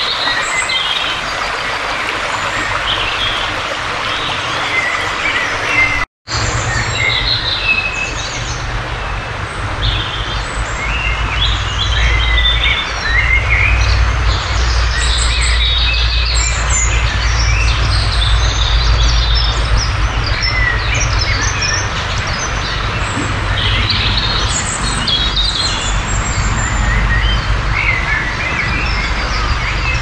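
A chorus of many woodland songbirds singing at once, overlapping high chirps and phrases, loud throughout. A split-second gap cuts the sound about six seconds in, and after it a steady low rumble runs underneath.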